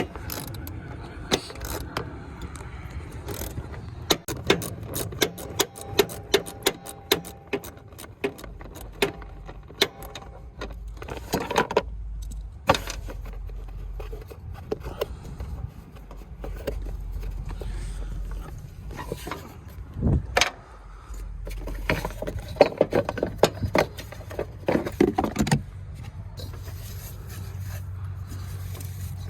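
Irregular metallic clinks, rattles and scrapes from hands and tools working on a John Deere S100 riding mower's cutting deck during a deck-belt replacement.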